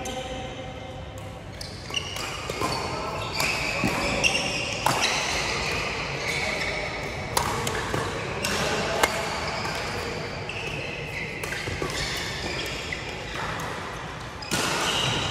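Badminton rally: sharp cracks of rackets striking a shuttlecock, a second or so apart at times, with voices in the background.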